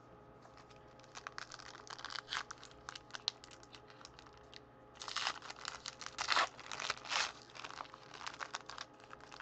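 Foil wrapper of a Panini Prestige basketball card pack crinkling as it is torn open and the cards are pulled out. The crinkling comes in two spells, the louder one a little past halfway, with lighter crackles near the end.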